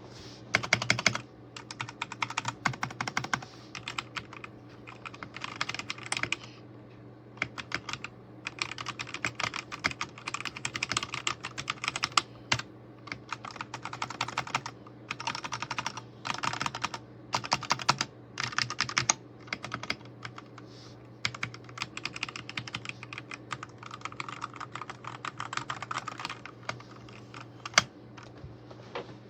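Typing on a DIERYA T68SE 60% mechanical keyboard with linear red switches: fast runs of keystrokes in bursts, broken by short pauses.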